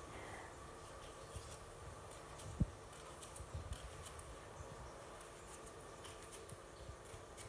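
Kitchen knife slicing through an onion held in the hand: a series of faint, crisp cuts, with one soft thump about two and a half seconds in. A faint steady hum runs underneath.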